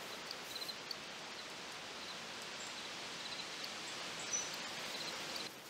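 Outdoor background ambience: a steady hiss of noise with faint, short high chirps recurring every second or so.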